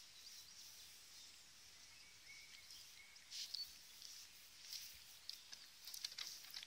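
Faint outdoor quiet broken by scattered short, high-pitched animal squeaks and chirps, with several coming in quick succession near the end.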